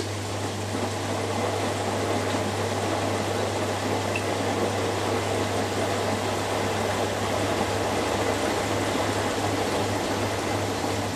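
Two front-loading washing machines, a Hoover Dynamic Next and a Beko Pro AquaTech, running their final spin together: a steady whir of the spinning drums and motors with a constant low hum.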